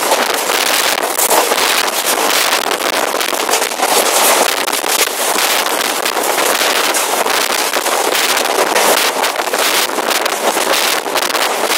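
Rushing wind on the microphone from a fast-moving passenger train, mixed with the steady rumble and clatter of a container freight train passing close by on the next track in the opposite direction.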